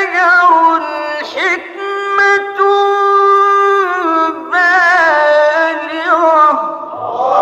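A man's unaccompanied voice reciting the Quran in the melodic mujawwad style, drawing out a phrase in long held notes with wavering ornamental turns between them. The last turn fades out near the end.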